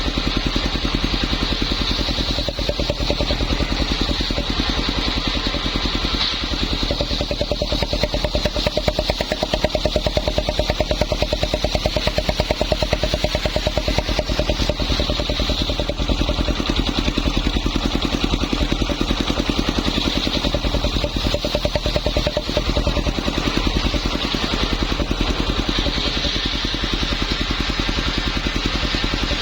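Homemade circular saw machine running steadily, its drive giving a rapid, even engine-like pulse throughout. A higher steady tone joins in through the middle stretch.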